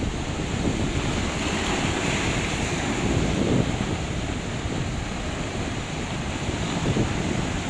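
Sea surf surging and washing over rocks in a continuous white-water rush, with wind buffeting the microphone in a low rumble.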